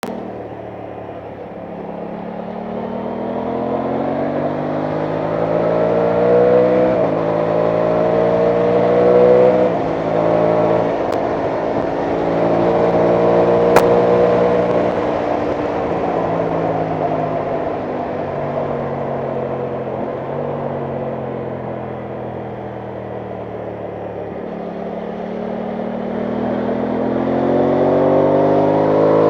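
Aprilia Tuono 660 Factory's parallel-twin engine accelerating through the gears. Its pitch climbs and drops back at upshifts about seven and ten seconds in, then holds and slowly falls off before climbing again near the end.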